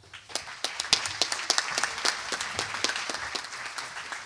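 Audience applauding: many hands clapping, building quickly at the start and tapering off near the end.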